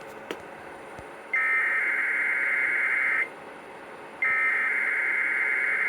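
NOAA Weather Radio broadcast sending the SAME digital header that opens an emergency alert test. Two bursts of shrill data tones, each about two seconds long and a second apart, come in over a steady radio hiss.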